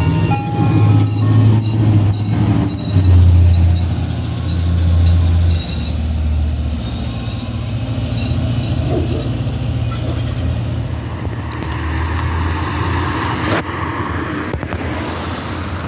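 Ice cream truck's jingle tune playing over a steady low vehicle rumble, the tune dying out about seven seconds in. Later a broader rushing noise of a vehicle moving swells up.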